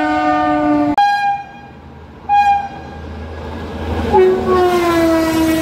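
Train horns: a long horn note breaks off about a second in, two short, higher toots follow, and from about four seconds an Indian Railways electric locomotive's air horn sounds continuously with a falling pitch as it runs past, over the low rumble of the train.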